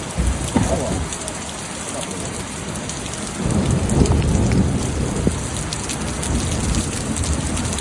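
Torrential rain pouring down in a dense, steady patter of drops. A heavier low rumble rises for about two seconds starting about three and a half seconds in.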